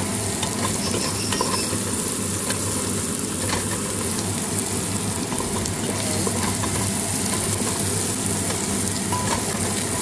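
Sliced onions and ginger sizzling steadily in hot oil in a pot while a wooden spatula stirs them, with small scraping taps of the spatula against the pot.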